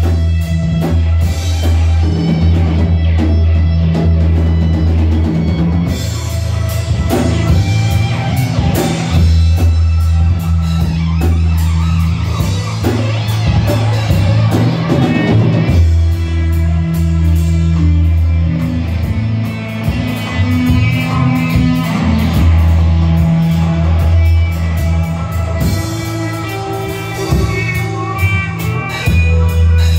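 Live psychedelic rock jam by a power trio: electric guitar, electric bass and drum kit playing an instrumental, with held bass notes under steady drum hits.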